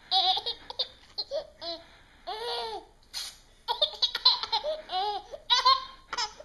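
Baby boy laughing hysterically in repeated bursts, set off by paper being torn in front of him, with short rips of tearing paper between the laughs.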